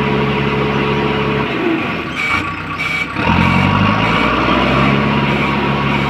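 JCB 3DX backhoe loader's diesel engine running steadily. About two seconds in, the engine note briefly drops away and two short high beeps sound, then the engine note picks up again.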